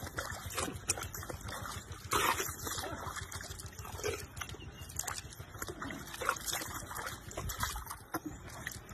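Water splashing and sloshing in a trough as a baby elephant's trunk swishes and slaps through it, with repeated irregular splashes.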